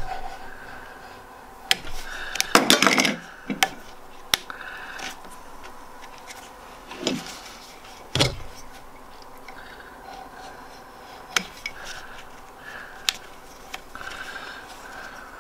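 Utility knife cutting and scraping at the heat-shrink sleeving on a lathe motor's wires, with scattered small clicks and handling knocks. A longer, louder scrape comes about three seconds in, and a single knock comes about eight seconds in.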